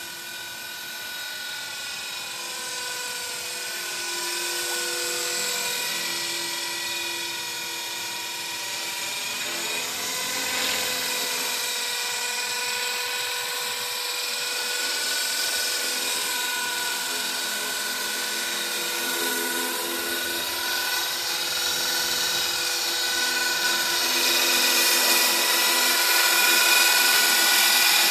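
HobbyKing HK-450 Pro TT electric 450-size RC helicopter in flight: a steady high whine from the motor and rotor blades whose pitch dips and recovers several times as it manoeuvres. It grows louder near the end as the helicopter comes in low and close.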